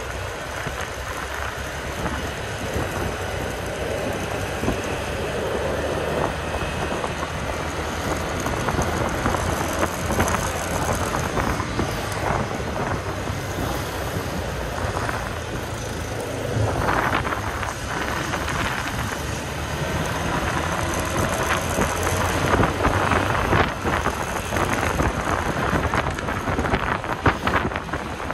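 Honda scooter ridden through town traffic: its small engine runs under a steady rush of road and wind noise that swells and dips slightly.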